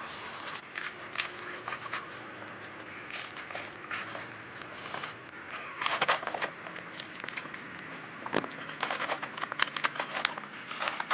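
Close-up eating sounds: chewing and crunching of crispy food, a run of crackling clicks that grows densest about six seconds in and again in the last few seconds.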